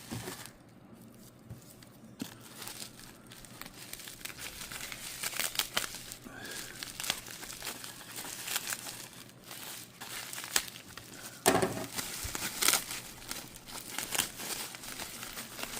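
Packaging around a spur gear for an RC car being crinkled and torn open by hand: a long run of crackles and snaps, louder in the last few seconds.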